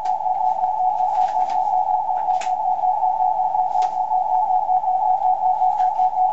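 The ES0SIX 50 MHz beacon received in CW mode on a Kenwood TS-480SAT: one steady, unbroken carrier tone whose strength rises and falls quickly, over band hiss with a few faint static clicks.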